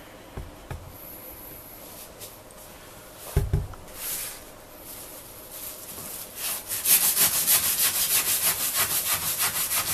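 Kitchen knife sawing back and forth through the tough root ends of a tied bundle of fresh lemongrass on a plastic cutting board, in quick even strokes about three a second, starting about six and a half seconds in. A single thump comes a little over three seconds in.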